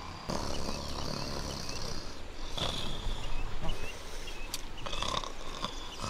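Outdoor ambience: short chirps repeating every half second or so, as of small birds, over a steady low rumble and a high hiss.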